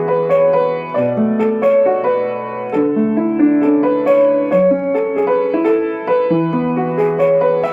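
Piano playing a song accompaniment: a steady flow of notes in the middle range over bass notes held for a second or so at a time.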